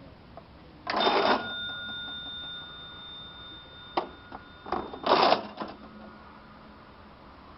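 Antique mechanical cash register being rung up. About a second in there is a loud mechanical clatter as the bell strikes, and the bell's tone rings on for several seconds. Around four to five seconds in, a few sharp clacks and a second loud clatter cut the ringing off.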